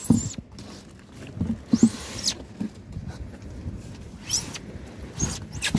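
Fish and polystyrene fish boxes being handled: scattered knocks and thumps, with a few short rising squeaks.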